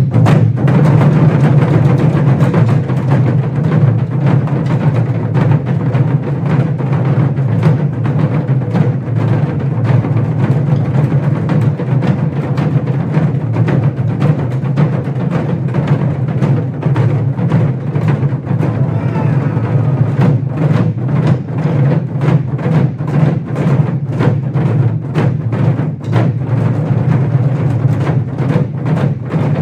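Moduk, a Korean ensemble of barrel drums (buk) on stands, played with sticks by a group together: a loud, fast, continuous stream of deep drum strokes, which become more separate and accented in the last third.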